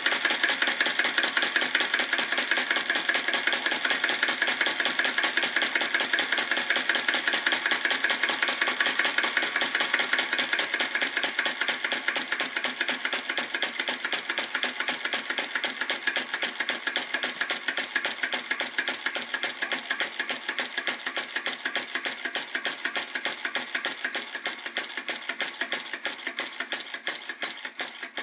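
Retrol VE-01 crossbeam flame-licker vacuum engine running with a rapid, even mechanical clatter from its valve and beam linkage, on a flame turned down low. The clatter grows gradually quieter toward the end.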